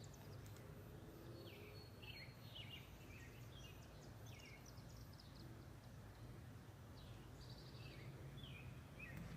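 Faint bird chirps: short, quick downward-sliding notes repeated irregularly over a low, steady background of outdoor noise.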